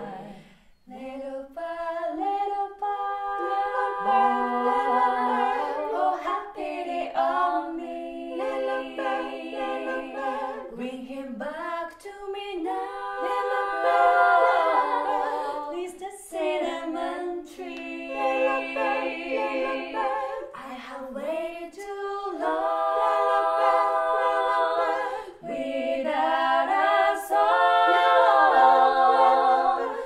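Five women's voices singing a cappella in close harmony, several parts moving together, in phrases broken by short pauses.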